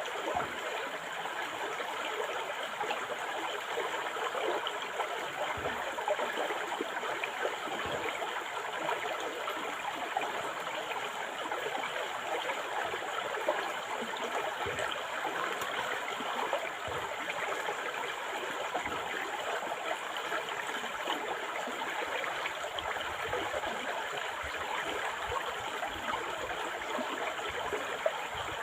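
A river or stream flowing steadily over rocks, a continuous rushing and splashing of water.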